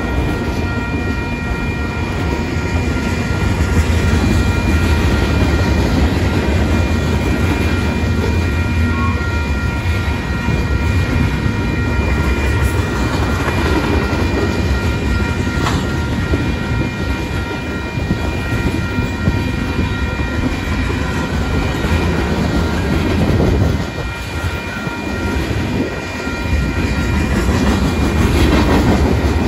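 Union Pacific mixed freight train's cars rolling past a grade crossing, wheels rumbling and clattering steadily on the rails, with thin steady high tones over it. The rumble dips briefly near the end, then comes back.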